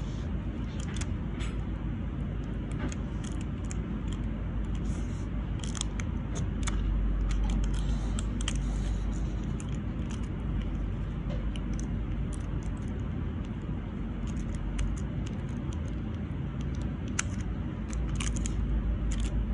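Long acrylic nails clicking and tapping against each other as the fingers handle them: light, irregular clicks over a steady low rumble.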